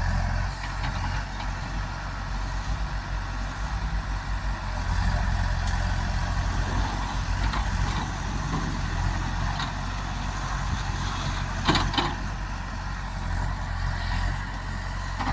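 Diesel engine of a heavy earthmoving machine running steadily at low revs, with a single metallic clank about twelve seconds in.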